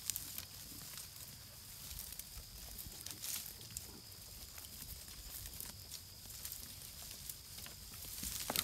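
A flock of sheep grazing on woodland brush: irregular tearing, snapping and crunching of leaves and stems as they bite and chew, with plants rustling as they push through.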